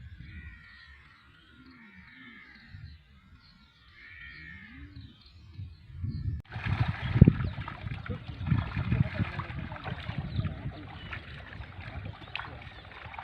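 Faint repeated rising-and-falling animal calls, then about six and a half seconds in a sudden louder stretch of water splashing and sloshing with scattered knocks, as fishermen work in a pond.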